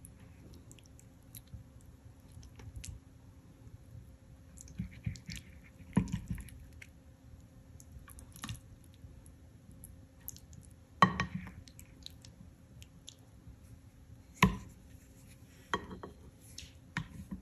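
Plastic serving spoon scooping saucy jackfruit and shrimp and knocking against ceramic dishes, with soft scraping and squishing between a few sharp clinks spaced several seconds apart.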